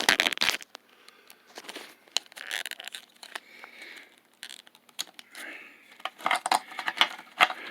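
Irregular sharp plastic clicks, taps and rustling as hands work the seat-belt wiring connector and harness on a car seat.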